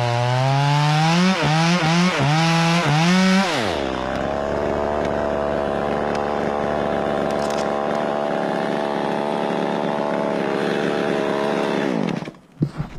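Gas chainsaw revving up and cutting, its engine note dipping and recovering several times under load for about three and a half seconds. It then drops to a steady, lower running note that falls away near the end.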